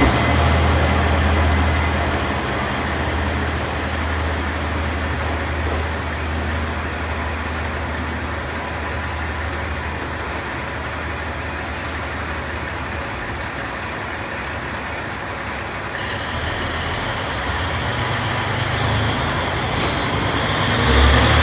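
Diesel engines of JR Kyushu KiHa 40-series railcars rumbling at a station. The low rumble fades over the first dozen seconds as one railcar draws away, and the engine of the railcar at the platform grows louder near the end as it gets under way.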